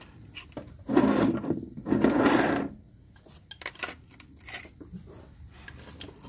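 Hand tools being handled, a ratchet and 17 mm socket clicking and rattling in two short bursts about a second in, with scattered metal clicks around them.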